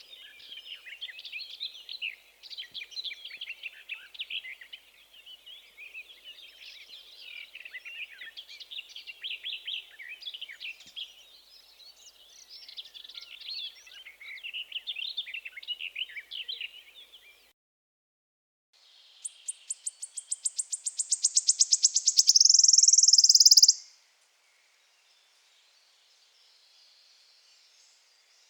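Recorded songs of two different migrant songbirds. The first is a long, rapid, scratchy, chattering warble. After a short pause comes a second, higher song: a series of quick notes that speeds up and grows louder into a trill, then stops abruptly.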